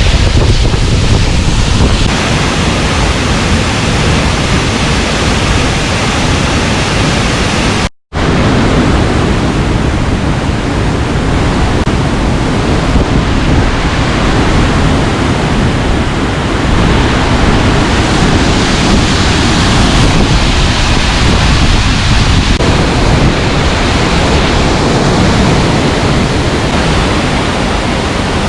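Waterfall running full after a heavy storm, a loud steady rush of falling water with some wind buffeting the microphone. The sound cuts out for an instant about eight seconds in.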